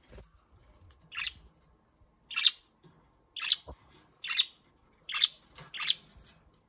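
Caged budgerigars calling: a string of six short chirps, about one a second.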